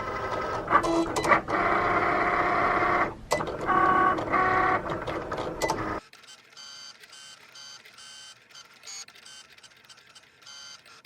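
Cricut vinyl-cutting machine cutting, its carriage and roller motors whining in steady tones in runs with a brief pause and a few clicks. About six seconds in the sound cuts off abruptly, leaving only a faint, high, pulsing sound.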